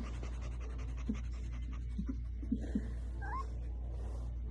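A cat making a few faint, short squeaks and a brief rising chirp over a steady low hum.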